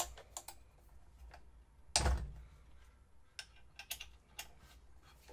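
Small metal clicks and taps of an Allen key and loose aluminium machine parts being handled during disassembly, with one louder knock about two seconds in.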